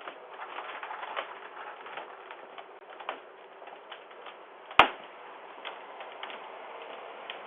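Irregular light clicks and taps over a faint hiss, picked up through a Ring video doorbell's microphone, with one much louder sharp click about five seconds in.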